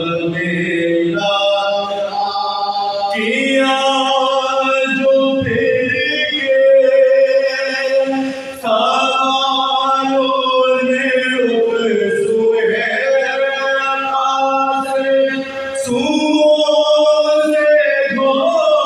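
Soz khwani: several men chanting a Muharram lament together without instruments, in long held lines with short breaks between them.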